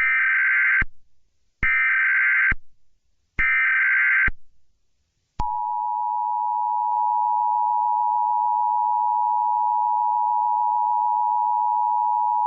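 Emergency Alert System tones. First come three short bursts of the digital SAME header data, each just under a second long. About five seconds in, the steady EAS two-tone attention signal (853 and 960 Hz) starts and holds.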